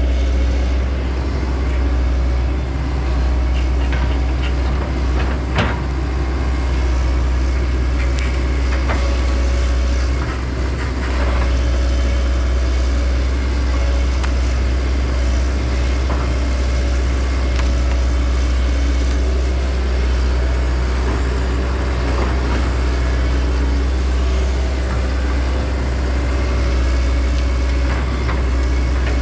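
Heavy diesel machinery, the stumping excavator and the tractor, running steadily under load with a deep low hum. Occasional knocks and clunks come through, the loudest about six seconds in.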